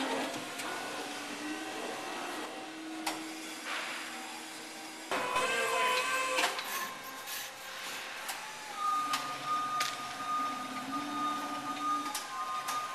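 Crown electric order picker's motor whining as a steady hum with held tones that stop and start, with metallic clanking about five to six and a half seconds in.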